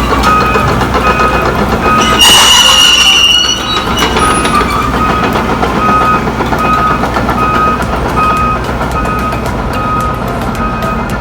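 Heavy-equipment reversing alarm beeping steadily, about one and a half beeps a second, over diesel engines running. About two seconds in, a loud high-pitched hiss with a squeal lasts about a second and a half.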